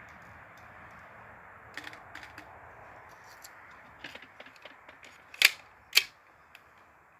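Light clicking from the pistol being handled and loaded, then two sharp shots about half a second apart from a Krytac SilencerCo Maxim 9 gas blowback airsoft pistol firing on CO2.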